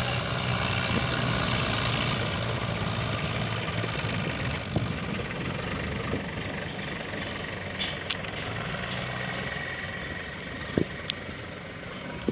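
Sonalika DI-750 Sikander tractor's diesel engine running steadily, growing fainter near the end, with a few sharp clicks over it.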